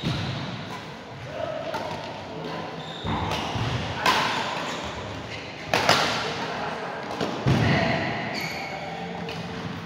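Irregular thuds and knocks ringing in a large, echoing indoor hall, with indistinct voices underneath.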